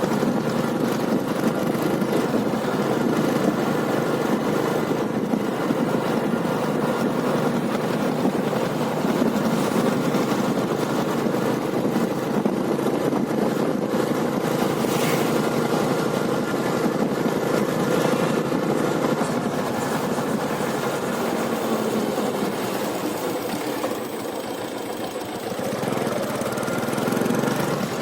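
Royal Enfield Taurus motorcycle's single-cylinder diesel engine running steadily, dipping slightly about four seconds from the end and picking up again just before the end.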